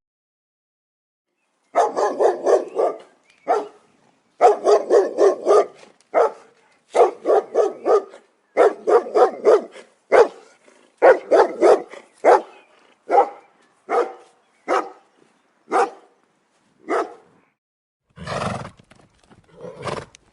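An animal calling in quick runs of short, pitched, pulsed calls, about five or six a second, that thin out into single calls about a second apart. A deeper, rougher call comes near the end.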